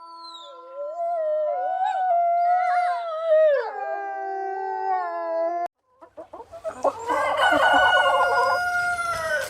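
Rooster crowing: two long crows, the first drawn out and dropping in pitch near its end, the second starting after a brief cut about six seconds in.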